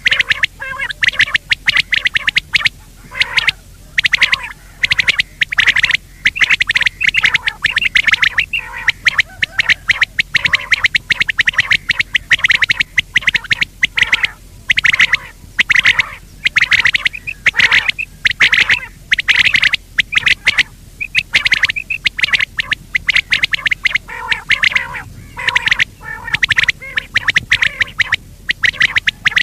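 Common quail calling: short, high call notes repeated rapidly in groups, with brief gaps between them. This is a recorded call of the kind played as a lure for netting quail.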